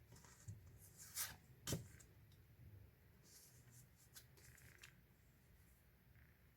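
Faint handling of paper and card items: a few soft rustles and two light taps or clicks about a second and a half in, otherwise near silence.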